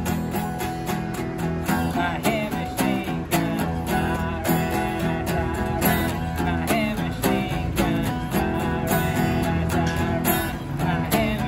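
Acoustic guitar strummed in a steady rhythm, with a man singing over it at times.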